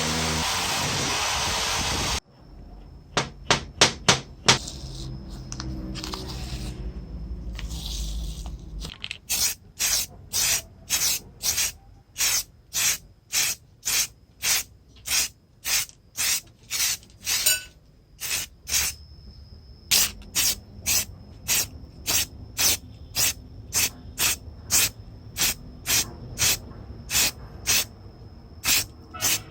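A loud steady noise cuts off suddenly about two seconds in. Then come short hissing spray bursts, a few at first, then a regular run of about two a second, with a faint steady high whine under them. This fits spray-painting parts with an aerosol can.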